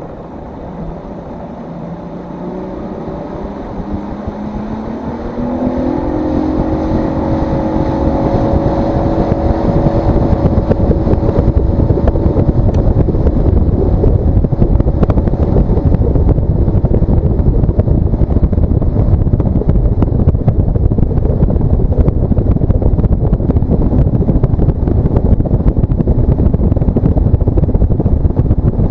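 A boat's motor throttling up: its pitch climbs over several seconds, then it runs steadily at speed. Heavy wind rush on the microphone and water noise lie under it.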